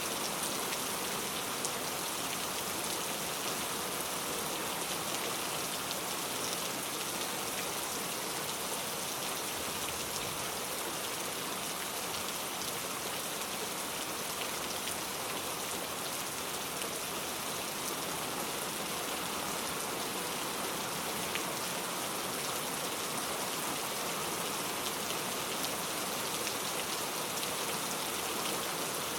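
Heavy rain falling steadily: a constant dense hiss with scattered drop ticks.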